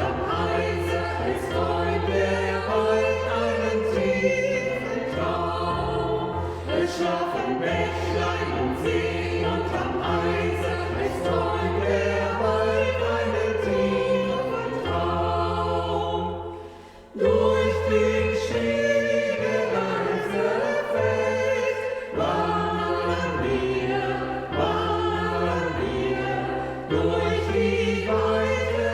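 Choir singing a Christmas song, with sustained low bass notes underneath. About sixteen seconds in the music fades briefly, then the choir comes back in at full strength.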